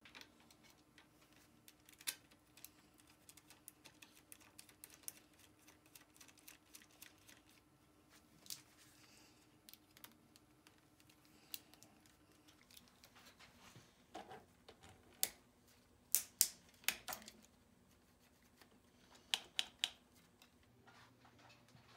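Faint clicks and taps of small metal bicycle parts being handled and fitted together, with a hex key turning a bolt. A few louder clicks come in quick groups in the second half.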